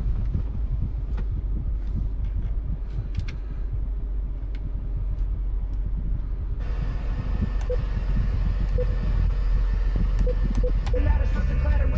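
Steady low rumble of a 2014 Jeep Wrangler's 3.6-litre V6 heard from inside the cabin, with scattered small clicks. About two-thirds through, a hiss switches on suddenly, and near the end the radio starts playing music.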